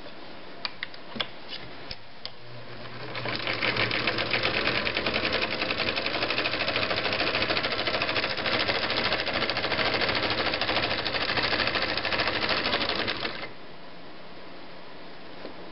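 Viking (Husqvarna) Type 21 sewing machine starting up and sewing steadily for about ten seconds: a rapid, even ticking of the needle mechanism over a low motor hum. It stops suddenly. A few light handling clicks come before it starts.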